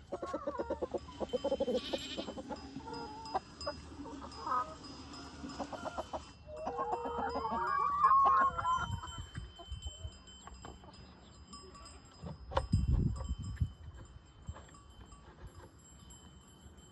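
A young goat bleating over and over, with chickens calling around it. A few dull low thumps come about twelve seconds in.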